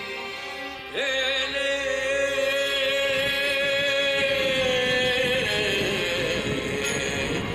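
Greek Orthodox church chanting: a single voice holds one long note that begins about a second in and steps down to a lower note about five seconds in.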